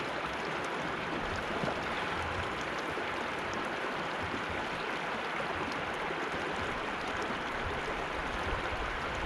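Shallow stream flowing over rocks: a steady, even rush of running water.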